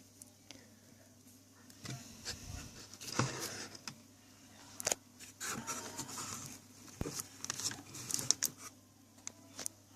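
Handling noises: light clicks, knocks and short scrapes, mostly from about two seconds in until near the end, as a transformer is worked over with alcohol-thinned BF glue. A faint steady low hum runs underneath.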